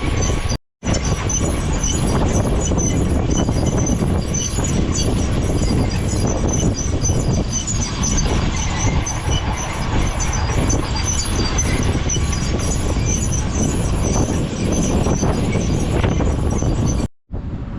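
Farm tractor pulling a field implement: a loud, steady rumble with a fast, regular high-pitched metallic squeaking and ticking on top. The sound drops out for a moment just under a second in and again near the end.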